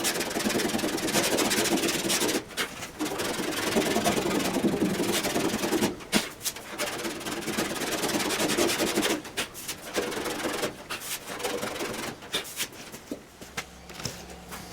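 Hand sanding on a car body panel: long runs of scratchy rubbing strokes, broken by short pauses every few seconds, that stop near the end.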